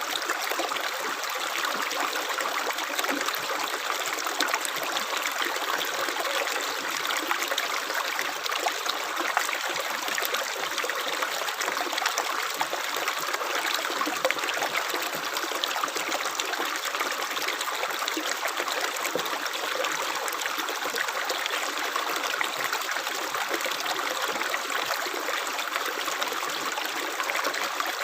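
Running water of a small stream, trickling and splashing steadily with a fine, bubbly texture and little low rumble.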